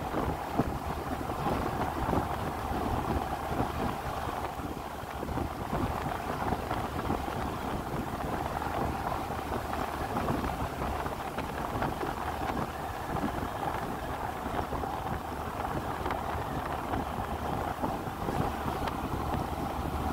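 A vehicle running steadily along a road, with wind rushing over the microphone.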